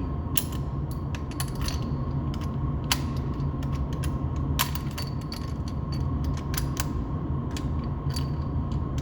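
Scattered metallic clicks and clacks of a bolt-action rifle being handled and readied to fire, over a steady low hum.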